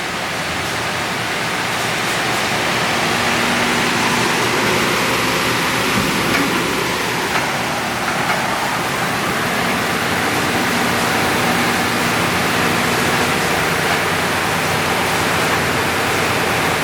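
Ramco 43-inch three-head wide belt sander running with no stock fed through, its first two sanding heads (30 and 25 horsepower) turning. The second head, just started, comes up to speed, and the steady whirring noise grows louder over the first few seconds before holding level.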